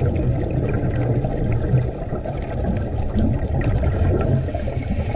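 Scuba regulator exhaust bubbles and breathing recorded underwater: a steady low rumble with irregular bubbling.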